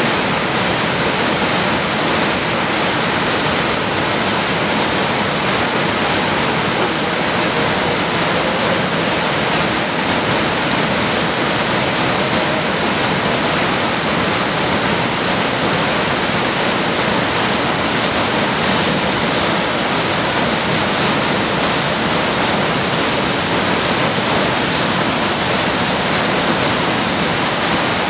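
Creek whitewater rushing down a rocky cascade between boulders: a loud, steady rush of water noise.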